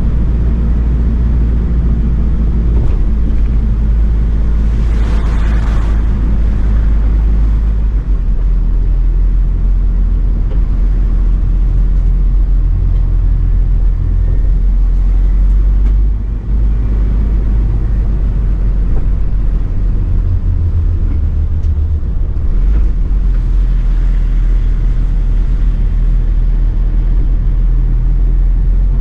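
Mercedes-Benz Atego expedition truck driving on a wet road: a steady low rumble of its diesel engine and tyres, with a brief burst of hiss about five seconds in.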